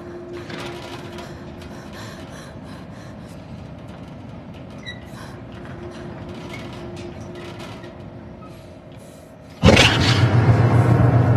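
Horror film sound design: quiet, tense ambience with a faint steady tone, then a sudden loud jump-scare hit a little under ten seconds in that carries on as a heavy low rumble.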